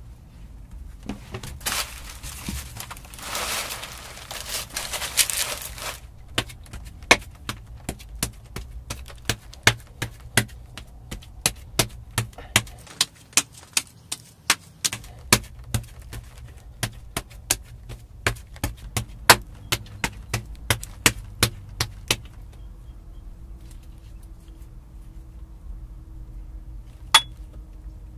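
Rustling for a few seconds, then a steady run of sharp stone-on-stone knocks, about two and a half a second, that stop well before the end. They come from stone striking the large stone anvil.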